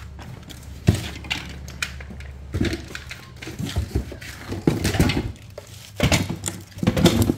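Irregular knocks and clatter of used chainsaw parts, plastic housings and handles, being handled and set down on a concrete floor.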